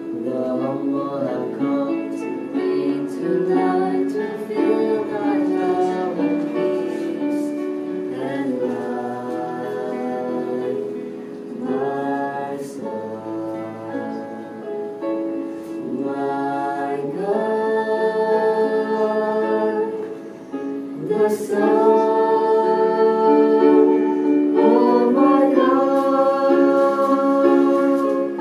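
Several voices singing a slow song in harmony, with long held notes.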